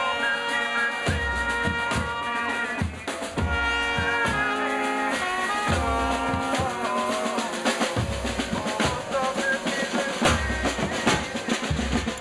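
Marching band playing: trumpets and trombones sounding held notes and short phrases over snare drums and a bass drum beating a steady, driving rhythm.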